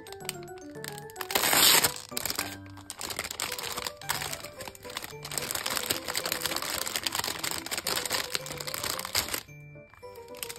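Clear plastic bag crinkling as gloved hands open it and pull out a silicone mold, loudest in a burst just under two seconds in, over gentle background music. The crinkling stops about a second before the end, leaving only the music.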